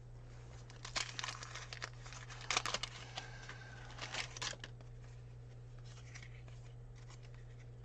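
Paper wrapper of a baseball card pack being torn open and crinkled, in three short bursts about one, two and a half, and four seconds in. A steady low hum runs underneath.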